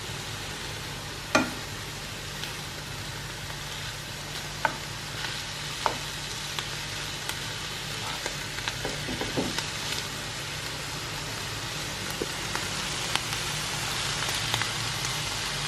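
Food sizzling in a frying pan over a steady low hum, with a few sharp clicks and taps against the pan.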